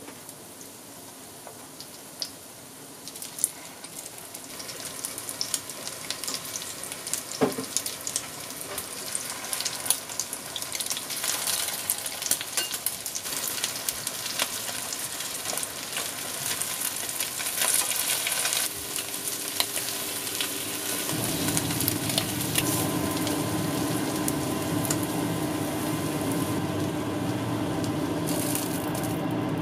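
Egg-dipped kimbap slices frying in sesame oil in a frying pan: a sizzling, crackling hiss that grows louder as the pan fills. A steady hum comes in about two-thirds of the way through.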